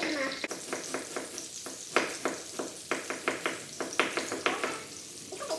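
Kitchen knife chopping carrot and onion on a wooden cutting board: quick, uneven knocks, about five a second, that stop a little before the end.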